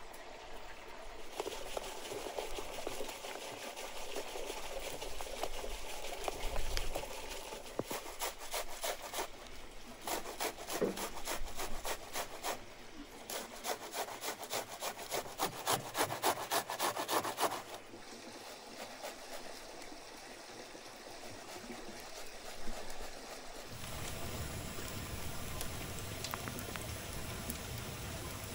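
An onion being rubbed up and down a metal box grater, in two runs of quick rasping strokes at about four a second. Near the end a steady low rumble takes over.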